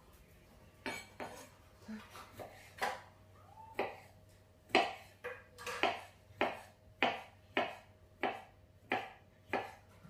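Kitchen knife chopping pickled cucumbers on a wooden cutting board: a few scattered cuts, then a steady run of knocks of the blade on the board, somewhat under two a second.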